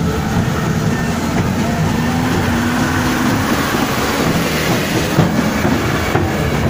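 A truck's engine rumbling steadily as it drives slowly past close by, over street noise.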